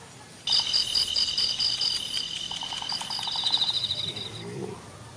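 Insects trilling: a steady high-pitched buzz with a fast pulse that starts about half a second in and stops abruptly near the end.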